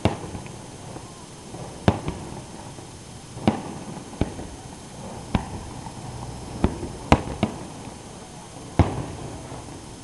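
Aerial firework shells bursting: about nine sharp booms at uneven intervals, a few of them close together around the middle.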